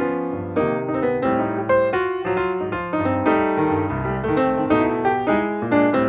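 Background piano music, with notes played in a steady flowing run.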